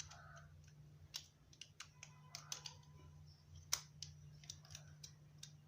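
Faint, scattered light clicks and taps of plastic parts being handled as a fan regulator is pressed into place in a stand fan's housing, over a low steady hum.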